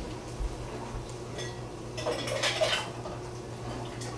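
Kitchen clatter of metal pots and utensils: a few light clinks and ticks, and a longer scraping clatter about two seconds in, over a steady low hum.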